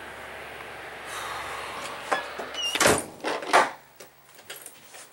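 Storm wind rushing over the microphone, then a door squeaks and shuts with two sharp knocks about three seconds in, after which the wind noise drops away, leaving only a few small clicks.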